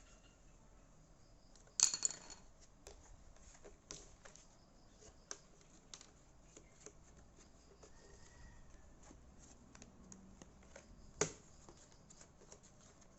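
Scattered small clicks and taps of hands working on small hard parts, with two sharper knocks, one about two seconds in and one about eleven seconds in.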